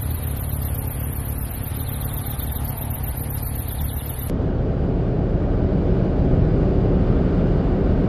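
A steady low background with a faint high-pitched pulsing, which about four seconds in cuts abruptly to the louder, even rumble of tyres and engine heard inside a moving car.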